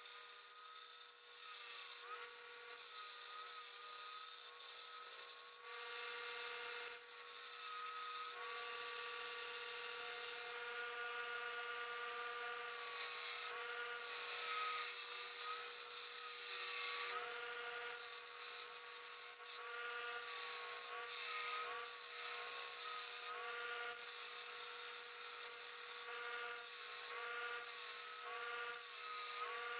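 Belt grinder running while a forged 1084 high-carbon steel knife blank is ground against its abrasive belt: a steady hum with a grinding hiss, and a whine that dips and recovers again and again as the steel is pressed in and eased off.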